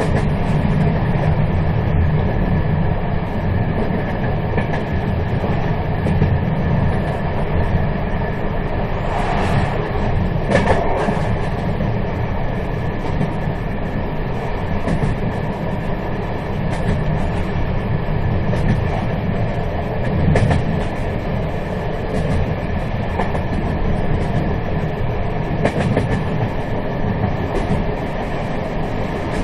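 Moving train running steadily: a continuous low rumble, with a few brief louder rattles about ten seconds in and again around twenty and twenty-six seconds in.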